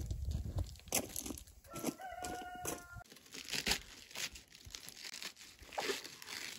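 A hen gives a held, pitched call about two seconds in. After that come crisp tearing and crackling sounds as leaves are pulled off a head of cabbage.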